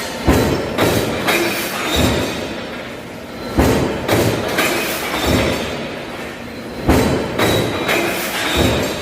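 Press machine working through its cycle: groups of about four heavy thumps, half a second apart, recurring roughly every three and a half seconds.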